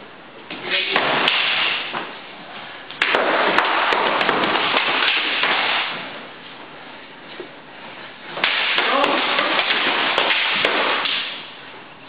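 Rattan eskrima sticks clacking against each other and against padded armour in three flurries of sharp strikes: about a second in, from about three to five seconds, and from about eight and a half to ten and a half seconds. Each flurry sits under a burst of loud rushing noise.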